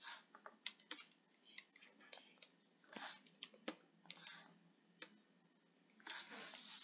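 Faint, scattered clicks of a computer mouse and keyboard, with a few short soft rushing noises between them.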